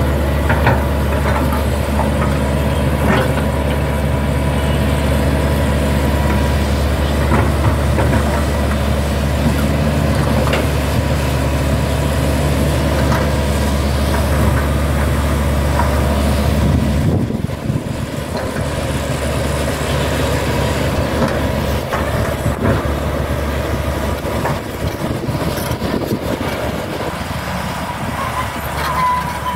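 Hitachi hydraulic excavator's diesel engine running under load as the machine crawls along on its steel tracks, with scattered knocks. About 17 seconds in, the deep engine drone drops away and the sound goes lighter.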